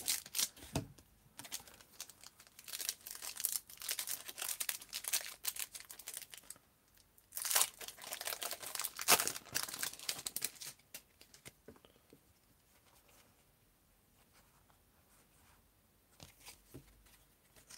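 A trading-card booster pack wrapper being torn open and crinkled, in uneven bursts over about ten seconds, the loudest rips about halfway through, then it goes nearly quiet.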